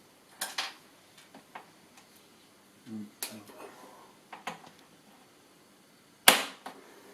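Scattered sharp plastic clicks and knocks from toy shop parts being handled and fitted together, with one louder knock about six seconds in.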